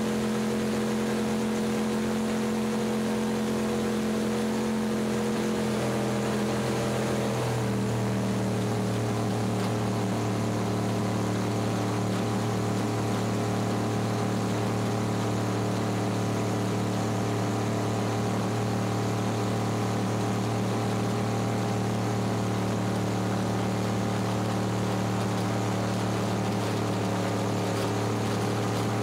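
Supercharged V8 engine of an open drag boat running steadily at low speed. Its pitch drops a step about six to seven seconds in, then holds steady.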